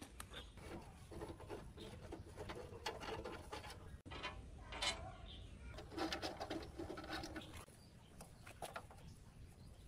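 Faint clicks and light metallic clinks as a hex key and loose metal parts are handled and fitted on the frame of a Hitachi A-1500A 3-in-1 woodworking machine.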